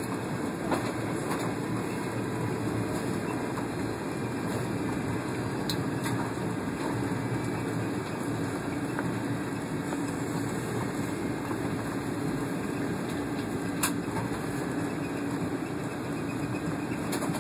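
Steady cabin noise of a Boeing 757 airliner taxiing, heard from inside the cabin: an even rush of engine and airflow noise with a low drone running under it. A few sharp clicks or knocks, the clearest about 14 seconds in.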